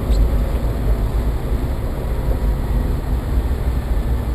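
Car cabin noise while driving: a steady low rumble of road and engine, the low hum the driver noticed after hearing knocks from the car. A brief faint click right at the start.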